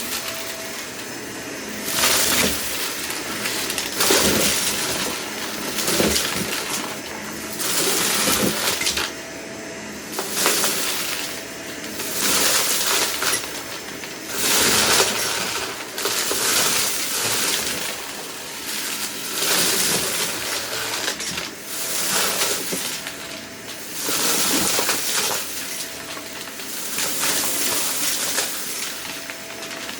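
Vacuum cleaner running with a steady motor whine, rattling and crunching as it sucks up spilled debris, swelling in repeated passes about every two seconds.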